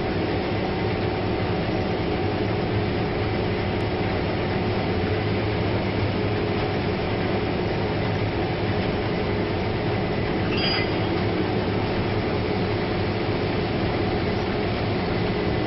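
Combine harvester running steadily while harvesting wheat: a loud, even mechanical drone with several steady whines running through it.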